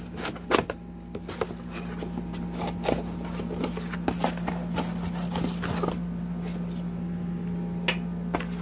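Cardboard shipping box being handled and opened: scattered scrapes, rustles and knocks, loudest in the first second, over a steady low hum.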